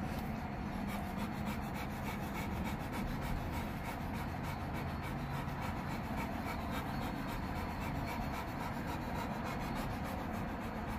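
Two American Bully dogs panting steadily in a mating tie, over a soft steady rustle.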